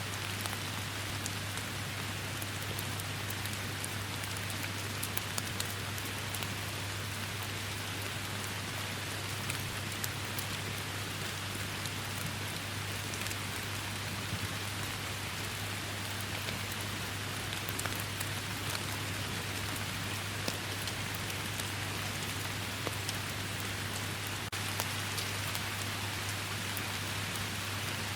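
Steady rain falling: an even hiss with many sharp droplet ticks scattered through it, over a steady low rumble.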